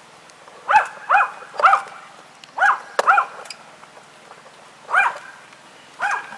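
A dog barking in short bursts: three quick barks, then two, then single barks a couple of seconds apart.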